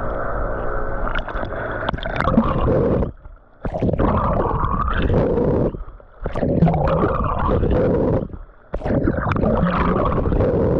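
Water gurgling and splashing right at the microphone as a swimmer strokes through the water. It comes in repeating surges of about two and a half seconds, each broken by a short drop-out.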